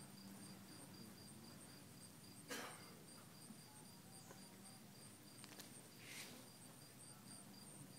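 Faint, steady, evenly spaced high chirping of a cricket, with two brief soft rustles, about two and a half and six seconds in.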